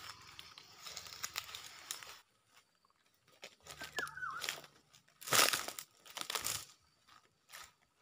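Footsteps crunching and rustling through dry leaf and palm-frond litter and undergrowth, in irregular crackling bursts, loudest about five to six and a half seconds in. A single short falling chirp sounds about four seconds in.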